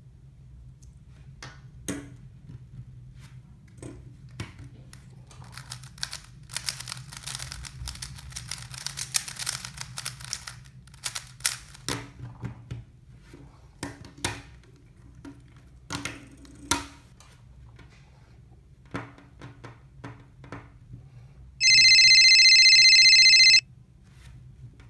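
Plastic wrapping crinkling and tearing as a book is unwrapped, with scattered taps and clicks of handling over a steady low hum. Near the end, a loud steady electronic beep lasts about two seconds and cuts off suddenly.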